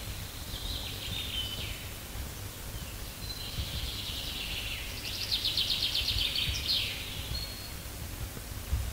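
Small songbirds singing: a short phrase about a second in, then a longer song that turns into a fast trill of rapidly repeated notes, over a faint low rumble.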